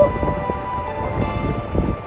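Background music with held notes, over a low, constant rumbling noise.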